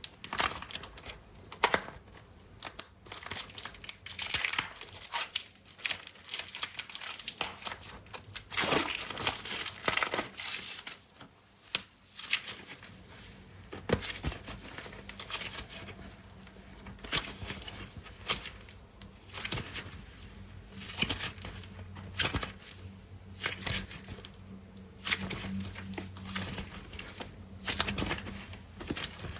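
Air-dry clay packaging being handled and torn open: irregular crinkling and tearing sounds, with a denser stretch of crinkling about nine seconds in.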